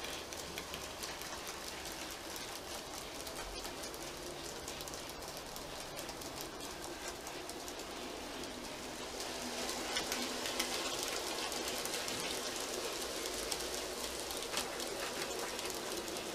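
An N gauge model goods train, a class 24 diesel hauling assorted wagons, running along the track: a steady crackling hiss with many small clicks from the wheels and motor. It grows louder about ten seconds in as the train passes close.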